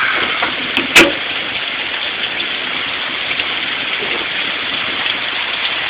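Steady hiss of heavy rain falling, with one sharp clink or knock about a second in.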